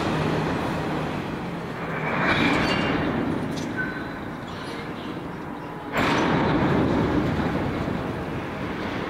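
Empty coal hopper wagons rolling across a steel girder railway bridge: a continuous rolling noise of wheels on rail. It jumps suddenly louder about six seconds in and fades away at the end.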